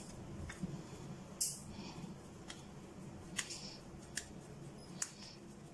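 Hands pinching off and rolling soft dough into balls over a glass bowl: faint handling noise with four short, light clicks spread through, the first and loudest with a brief swish.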